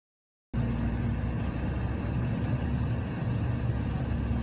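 Steady drone of an airliner's engines and rushing air heard inside the passenger cabin on landing approach, starting abruptly about half a second in.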